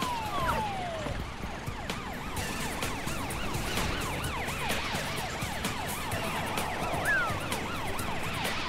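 Emergency sirens of a cartoon police car and fire truck on an emergency call, wailing in fast, overlapping up-and-down sweeps over a steady low rumble. A few falling swoops come in the first second.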